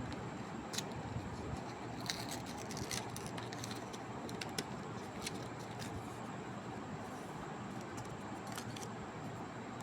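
Scattered light clicks and small handling noises over a steady background hiss, from craft materials being handled and worked by hand.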